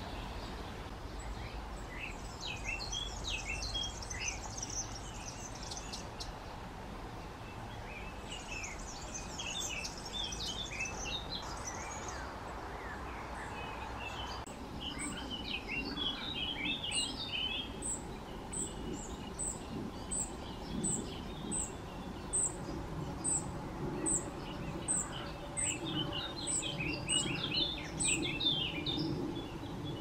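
Songbirds singing: four bursts of quick, varied song phrases a few seconds apart. Through the second half a thin, very high call repeats about twice a second over a low background rumble.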